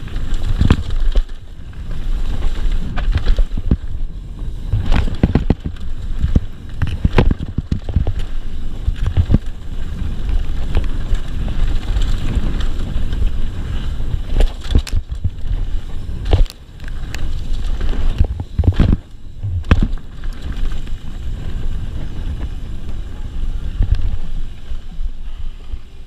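Mountain bike descending a rough dirt downhill trail fast. Wind buffets the camera microphone, the tyres rumble over dirt and rocks, and the bike gives frequent rattling knocks over the bumps.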